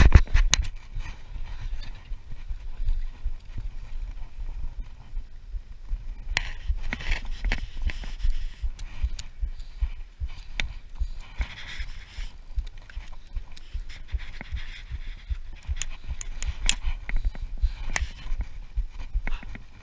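Wind rumbling on an action-camera microphone, with scattered clicks and scrapes of rod and line handling, and a few spells of heavy breathing.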